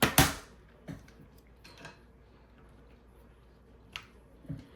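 A sharp double knock of a small tool or the phone handled on a hard work surface, followed by a few lighter clicks and taps while working at the phone's bottom screws.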